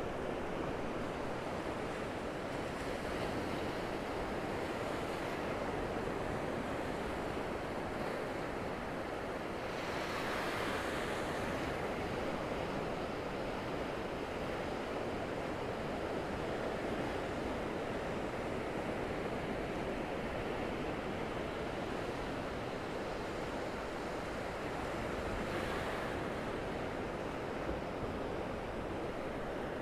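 Surf of the Gulf of Mexico washing onto a sand beach: a steady rushing wash, swelling into a louder hiss as a wave breaks about ten seconds in and again about twenty-five seconds in.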